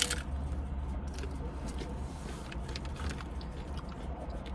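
Low steady rumble of a car idling, heard from inside the cabin, with a sharp click at the start and a few light clicks and rustles.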